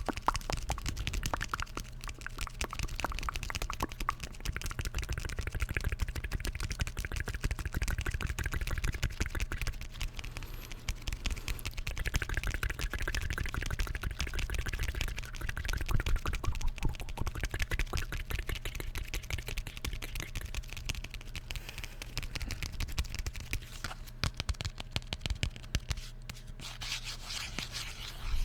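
Rapid, continuous tapping on an object, many quick sharp taps a second with no pause.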